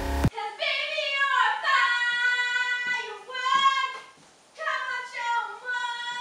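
A high voice singing long held, gliding notes in two phrases, with a short break about four seconds in. A brief loud sound sting cuts off just after the start.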